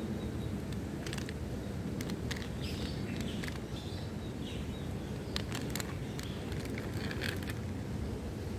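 Several sharp clicks and small rattles as a folding selfie-stick tripod is unfolded and adjusted by hand, over a steady low outdoor rumble.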